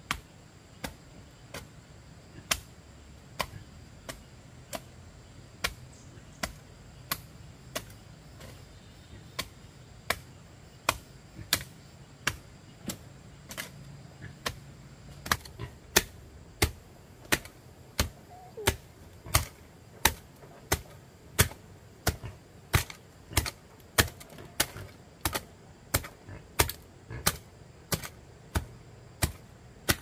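Repeated sharp blows of a hand tool, a steady work rhythm of about one strike a second that grows quicker and more even, about three strikes every two seconds, in the second half.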